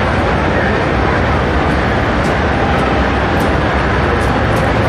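Busy exhibition hall ambience: a steady, loud hubbub of crowd voices over a low rumble, with no single sound standing out.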